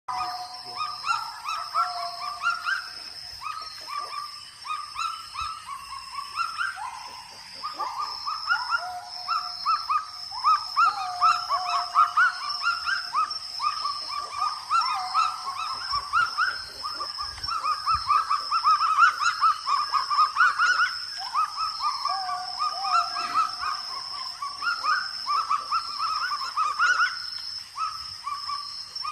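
Kagu calling: a long unbroken run of short, rising, bark-like notes, several a second.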